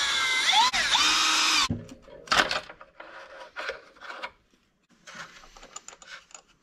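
Cordless Milwaukee M12 Fuel screwdriver whining as it backs out a screw from a Traxxas X-Maxx's plastic gear cover, its pitch sliding about a second in, then stopping. Scattered clicks and rubbing follow as the plastic cover and parts are pulled off by hand.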